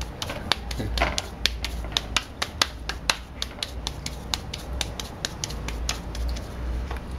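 Hands patting a ball of wet corn masa flat into a tortilla, slapping it from palm to palm and turning it, at about four pats a second, the pats growing softer in the second half.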